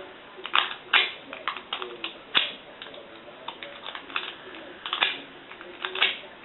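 Snake rake pick raking the pin stack of an old Master padlock: repeated short metallic scraping strokes and small clicks, a louder stroke about once a second.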